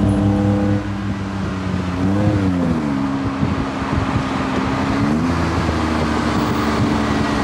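Tuk-tuk engine running under way, with road and wind rush. Its note rises and falls about two seconds in, then climbs again about five seconds in as the throttle changes.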